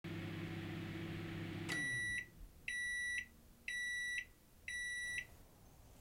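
Microwave oven running with a steady hum that stops with a click a little under two seconds in and winds down, followed by four high beeps, one a second: the end-of-cycle signal that the cooking time is up.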